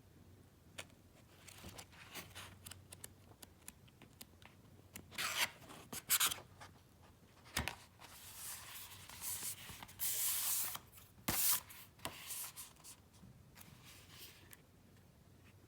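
Paper rustling and sliding as paperback books are handled: irregular scrapes and rustles with a few sharp clicks, coming in bursts that are loudest through the middle.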